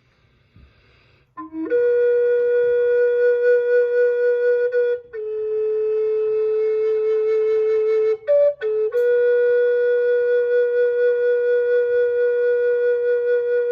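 A flute playing slow, long held notes after a short pause. One note is held for about three seconds, then a slightly lower one, then a quick higher note around eight seconds in, and a long held note to the end.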